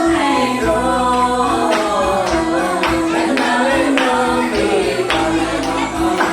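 Background music: a sung song with a steady beat.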